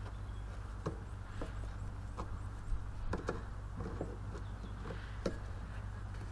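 Pliers clicking and scraping on a steel split pin as it is worked loose, about ten small sharp metallic clicks spread irregularly over a low steady background hum.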